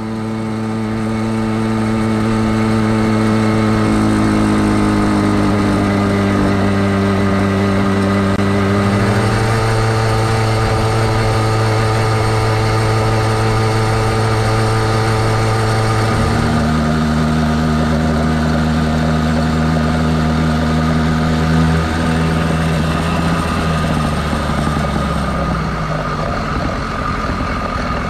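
Two-stroke motorized-bicycle engine, a YD-100-type top end on a Phantom 85 bottom end, running at a steady speed. Its note changes pitch a couple of times, drops clearly a little past halfway, and breaks up into a rougher sound near the end.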